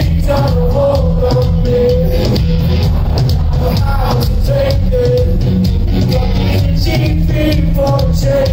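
Live band playing loud amplified rock music, with a steady pulsing bass line under held, wavering notes.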